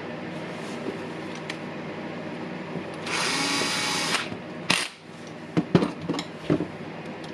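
Small electric screwdriver running for about a second, driving in the screw of a wire terminal on a power-tool switch. A sharp knock and a few light clicks of small parts being handled follow.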